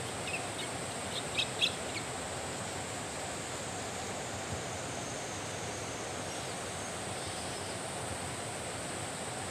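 Steady outdoor background hiss, with a few short high-pitched chirps in the first two seconds.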